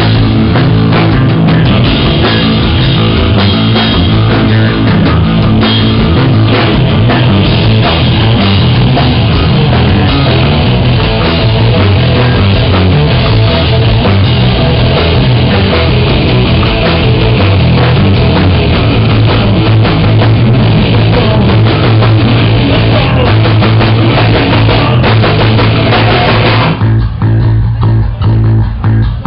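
Post-hardcore band playing live and loud: electric guitar and drum kit in a dense, rough-sounding wall of sound over a held low note. Near the end the full texture drops away, leaving the low note and sparser, choppier playing.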